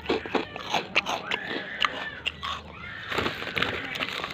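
Crisp fish crackers being bitten and chewed close to the microphone: a quick, irregular series of crunches.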